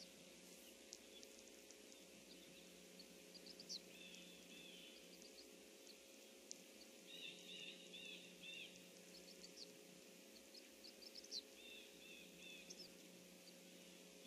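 Faint wetland birdsong: several birds chirping, with one short phrase of a few notes repeated three times, about every four seconds, over a steady low hum.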